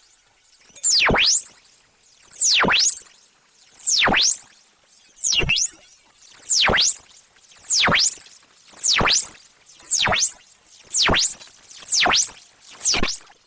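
Electronic sweep tone used as a chicken deterrent: a high-pitched tone that repeatedly dives down to a low pitch and swoops straight back up, about once every second and a bit, the swoops coming closer together toward the end.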